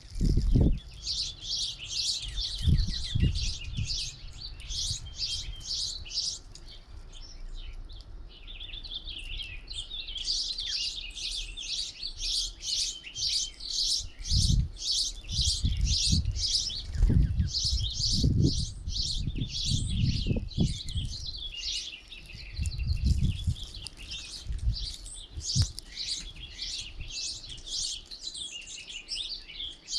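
A flock of small songbirds at a feeder chirping rapidly and continuously, many calls overlapping, with a short lull about seven seconds in. Low thumps come now and then underneath.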